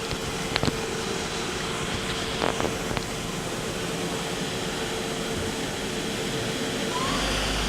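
Doosan Lynx 220A CNC lathe spindle running at about 2,500 RPM, a steady whine over a whooshing hiss, nice and quiet. Near the end it starts speeding up toward 3,000 RPM, with a short rising tone and a deeper hum coming in.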